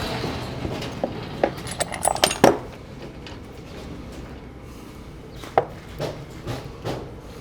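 Sharp metallic clanks and clinks, a quick cluster about one to two and a half seconds in and a single louder clank about five and a half seconds in, over a low steady engine rumble.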